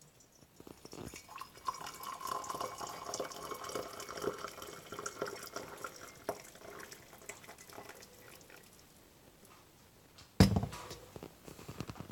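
Water poured in a thin stream from a gooseneck kettle into a ceramic mug, splashing and trickling, then thinning out and stopping. Near the end there is one sharp, loud knock.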